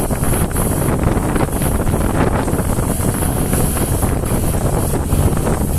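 Wind buffeting the microphone on a moving motorboat, over a steady low rumble of the boat running on the water.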